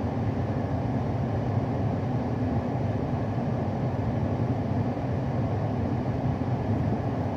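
Steady low rumbling background noise with a faint hiss, unchanging throughout.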